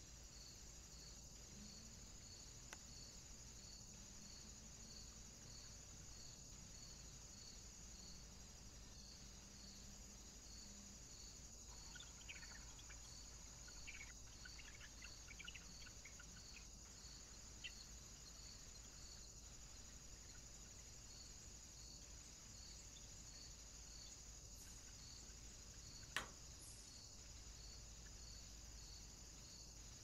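Near silence: a faint steady high-pitched hiss with a soft regular pulse, a cluster of faint ticks in the middle, and one sharp click near the end.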